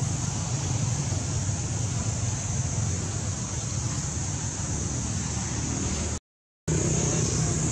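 Steady outdoor background noise: a low rumble under a constant high hiss, with no monkey calls. It cuts to dead silence for about half a second a little after six seconds in, at an edit.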